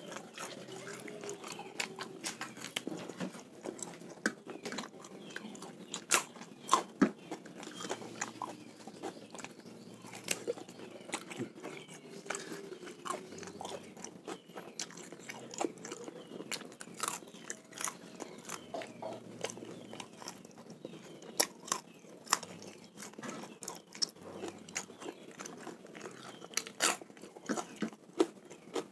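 Close mouth sounds of a person chewing and biting raw, sun-dried salted snakehead fish, with many sharp, irregular clicks.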